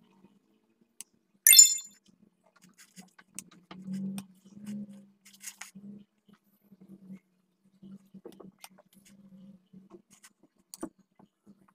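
A metal knife clinks sharply against a ceramic plate or glass bowl with a short ring, about a second and a half in, followed by faint scrapes and light taps as whipped cream is spread over the sides of the cake.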